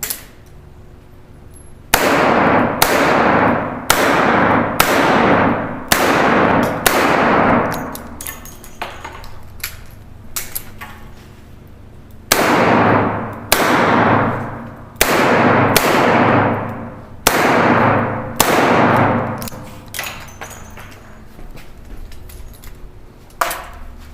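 Smith & Wesson Model 66 six-shot revolver fired in two strings of six shots, each about a second apart, every shot ringing out afterwards. Between and after the strings come light metallic clicks and clinks of a speed-loader reload, and a single sharp knock comes near the end.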